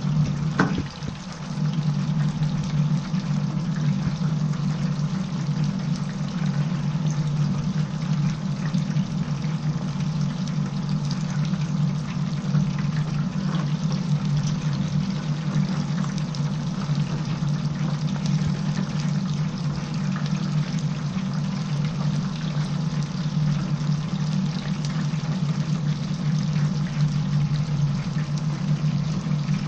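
Chicken pieces deep-frying in a commercial stainless-steel fryer, the hot oil bubbling and crackling steadily over a steady low machine hum. A brief knock just under a second in.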